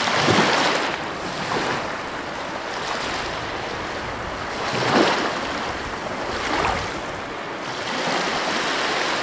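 Ocean surf: waves breaking and washing up a sandy beach in several swells, the loudest about halfway through.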